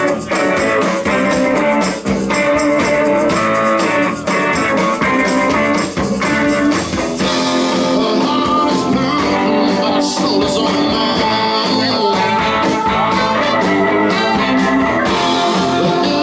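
Blues-rock band playing live, guitar to the fore, with drum hits keeping a steady beat.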